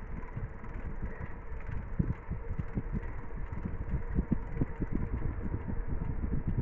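Bicycle rolling along new, slightly bumpy asphalt: a steady low rumble with irregular small knocks and rattles from the bike, thickest from about two seconds in.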